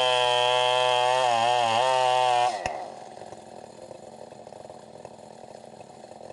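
Stihl 070 two-stroke chainsaw running at high revs, its pitch wavering briefly, then cutting off abruptly about two and a half seconds in, leaving only a faint low background noise.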